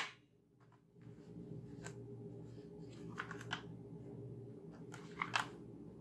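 Hard plastic toy guns being handled and set down: faint clicks and light clatters, a few at a time, about two seconds in, around three seconds in and again just past five seconds.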